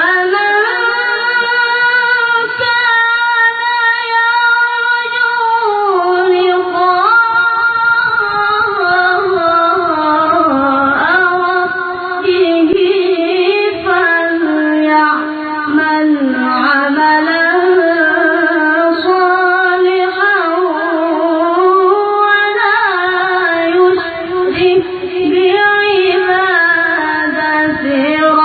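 A child reciter's high voice chanting the Quran in melodic tilawah style, with long held notes that bend and trill in ornamented runs.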